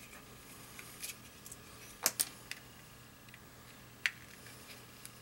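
Small sharp clicks and ticks of a precision screwdriver working tiny screws out along the edges of a cell phone's casing, the loudest pair about two seconds in and another click about four seconds in, over a faint steady low hum.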